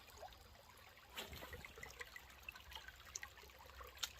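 Faint trickle of running water, with scattered small ticks and a sharp click near the end.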